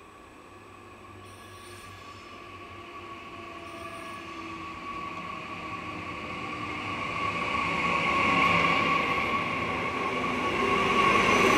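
Bombardier Twindexx Vario double-deck electric train (DB class 445) pulling into the platform, growing steadily louder as it nears. A steady high squeal runs throughout, and lower whining tones fall in pitch as the train slows.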